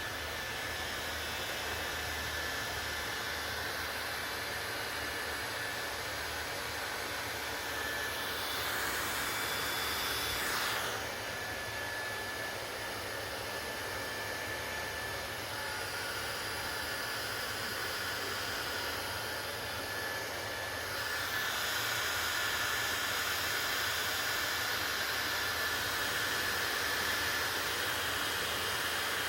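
Hair dryer running steadily: a continuous rush of air with a faint high whine. The sound brightens for a couple of seconds about a third of the way in and grows slightly louder and brighter for the last third.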